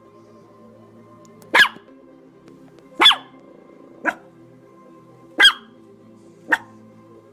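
A dog barking five single, sharp barks, spaced about one to one and a half seconds apart, over soft background music.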